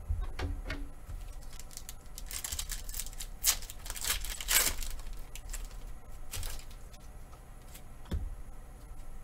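A Pokémon booster pack's foil wrapper being torn open and crinkled by hand, in a run of crackling rips about two to five seconds in. A soft knock follows near the end as the cards are handled.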